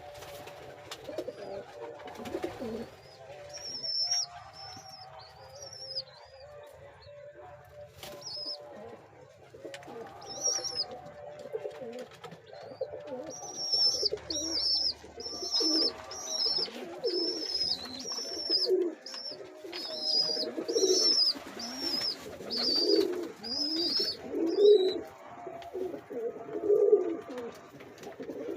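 Pigeon squabs squeaking to be fed: scattered high peeps at first, then from about halfway a quick, regular run of begging squeaks about twice a second, over lower pigeon cooing.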